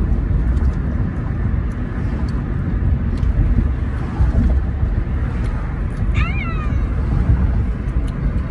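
Steady low road and engine rumble inside the cabin of a moving car. About six seconds in comes one short, high squeal that falls in pitch.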